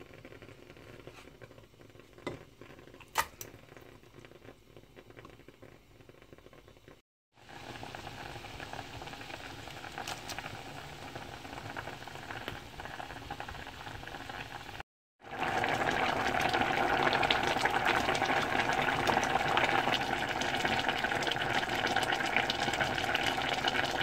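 Liquid boiling, a steady bubbling hiss heard in two clips. The second clip, starting about halfway through, is much louder than the first. Before them come a quiet stretch and two light clicks.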